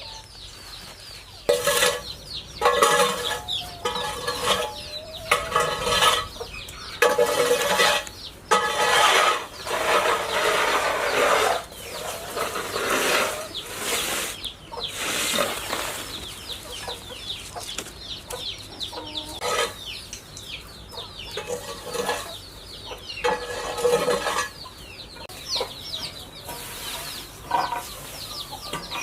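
Chickens clucking and squawking in loud, irregular bursts for roughly the first half, then calling more quietly, over a constant run of short, high, falling chirps.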